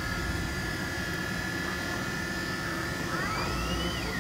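Inside a moving minibus: steady engine and road rumble with a thin high whine that holds one pitch, then about three seconds in climbs, drops sharply and climbs again as the engine revs through a gear change.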